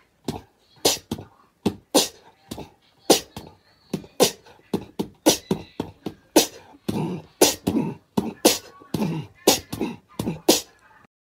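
Rhythmic beatbox-like mouth sounds: short, sharp puffs and clicks at an even beat, about two a second.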